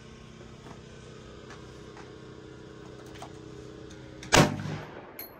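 A steady low hum, then a single loud gunshot about four seconds in, followed by a faint high ringing.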